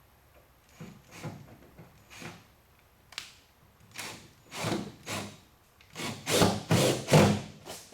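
A series of short rubbing, scraping strokes that grow louder and closer together toward the end, as a screw is worked into a plastic wheel flare.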